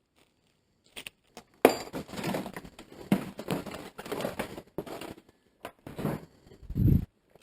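Irregular crunching and crackling of dry debris being disturbed, starting about a second and a half in, with a couple of low thumps near the end.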